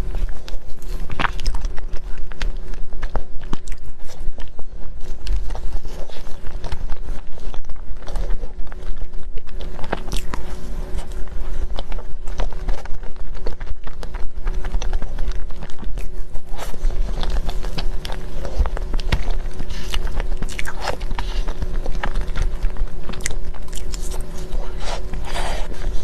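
Close-miked biting and chewing of a mille-crêpe cake, with many small wet mouth clicks and smacks over a steady low rumble and a faint steady hum.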